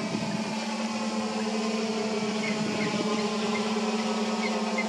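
Electric motors and propellers of a DSI Painted Eagle VTOL quadplane humming steadily as it hovers in flight on its lift rotors. A few faint high chirps sound in the second half.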